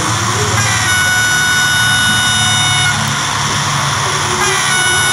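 Model railway locomotive's built-in sound system sounding its horn twice: a steady blast of about two seconds, then a second blast starting near the end, over a low, steady diesel-engine hum.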